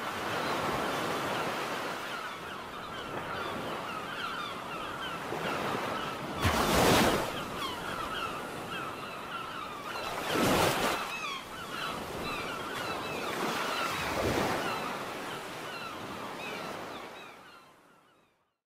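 Ocean surf washing steadily, with three loud waves breaking a few seconds apart. Many short high chirping calls run underneath. The sound fades out near the end.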